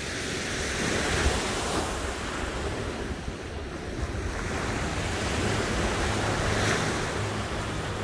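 Sea waves breaking and washing up the beach, the surf swelling about a second in and again around six to seven seconds. Wind buffets the microphone with a low rumble.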